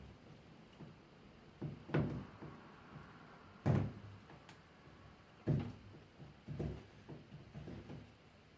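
A handful of dull knocks and thumps, spaced a second or two apart, with the loudest just before the middle, as a rubber window gasket and its lock strip are pressed and worked into place around flat glass.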